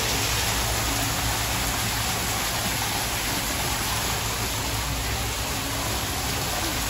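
Small artificial waterfalls splashing into an indoor koi pond: a steady rushing, splashing noise over a low hum.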